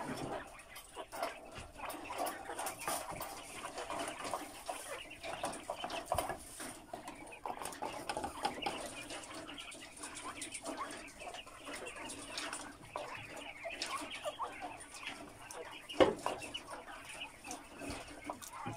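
A flock of giant white quail in a wire cage chirping and twittering continuously, with scattered small clicks as the birds peck at feed in a metal trough. One sharp knock stands out about 16 seconds in.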